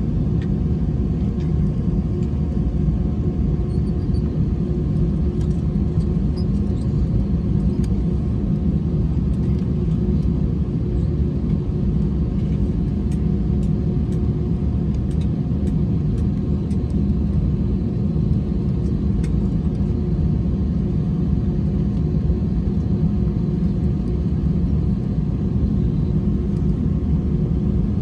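Steady low rumble of an Airbus A321 cabin on the ground after landing, the plane taxiing with its engines at idle, with a steady hum and a few faint ticks and rattles.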